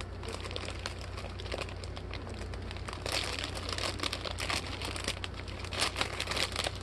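Small plastic bags of diamond-painting drills crinkling as they are handled and sorted through, a dense crackling that grows busier about halfway in and again near the end.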